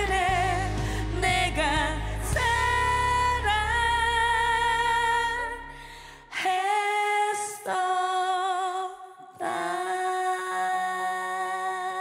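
Two women singing a duet into microphones over band backing. About six seconds in, the bass drops out and the voices hold long notes with vibrato, with two short breaks before the song's close.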